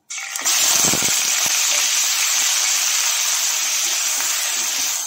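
Coarsely chopped onion hitting hot mustard oil in a kadhai: a sudden loud sizzle that settles into steady frying, easing off slightly toward the end, with a few low knocks about a second in.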